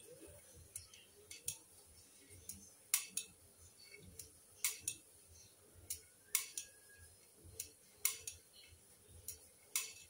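Hoover front-loading washing machine tumbling a wet load of clothes at the start of a wash, with low, soft swishing of water and laundry. Over it come sharp clicks, a loud one about every 1.7 seconds with fainter ones between, in time with the drum's turning.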